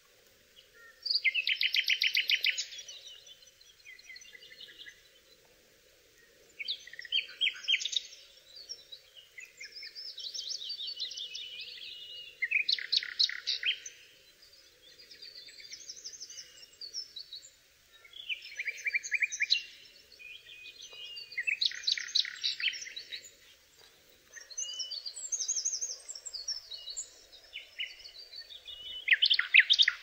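Songbird singing in a run of separate high-pitched phrases of fast trills and whistled notes, each a second or two long with short pauses between, over a faint steady background hum.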